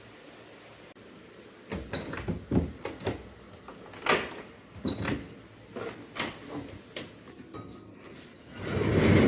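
A run of irregular sharp knocks and clicks, then a loud rumbling noise swelling up near the end.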